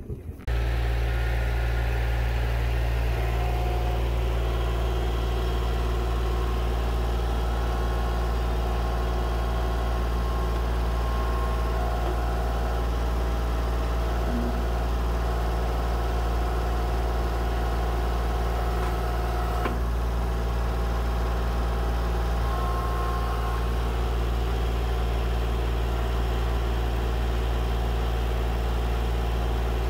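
An engine running at a constant speed: a steady, unchanging low hum that cuts in just after the start.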